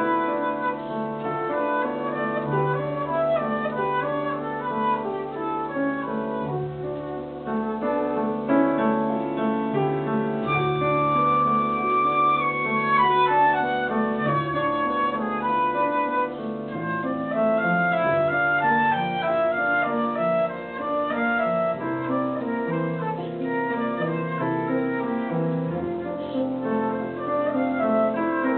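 Concert flute playing a flowing melody over piano accompaniment, the piano holding low bass notes beneath it.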